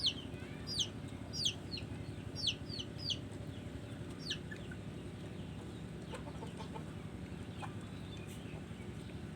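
Bird chirping in short, sharply falling high notes, about eight in the first four seconds and then only faint ones, over a steady low background rumble.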